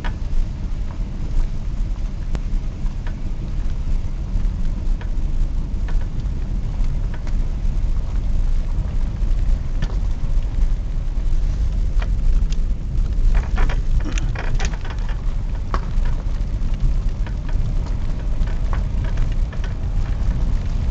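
Steady low rumble of a car driving, heard inside the cabin, with scattered light ticks and a short cluster of sharper clicks about two-thirds of the way through.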